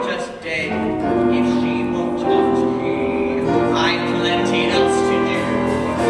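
Live stage-musical number: the pit band and ensemble voices hold long, sustained chords, with wavering sung notes rising above them twice. Loudness dips briefly just after the start.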